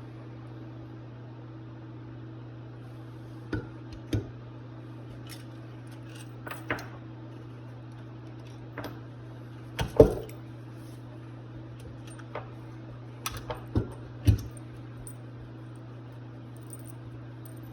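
Metal tools and small carburetor parts clinking and knocking now and then as a Rochester 2GC two-barrel carburetor is taken apart, over a steady low hum. The loudest knock comes about ten seconds in.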